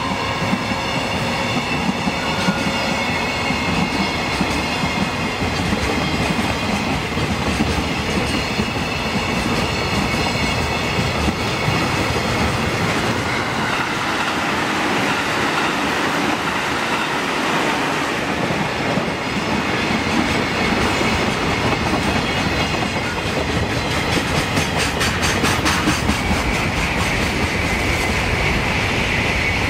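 Long container freight train of flat wagons rolling past at speed, its wheels clattering steadily over the rail joints. About midway, an electric passenger train passes on the nearer track and mixes its running noise in.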